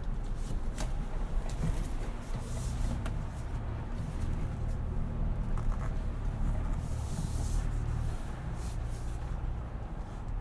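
Cabin sound of a Ford Bronco's 2.7 L twin-turbo V6 running at a low, steady drone while driving through mud, with scattered knocks and creaks from the body and short hissing bursts from outside.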